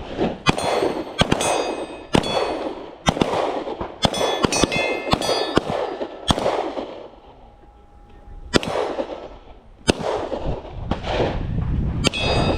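Handgun shots from several shooters on a firing line, about fifteen shots at an irregular pace with a lull in the middle. Several shots are followed by a metallic ringing that hangs on for a second or more.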